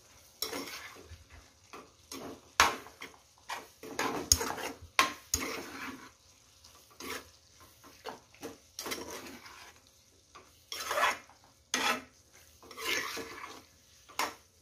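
Metal spatula scraping and clinking against a nonstick kadai as mushroom fry is stirred and tossed, in uneven strokes with a few sharp knocks against the pan.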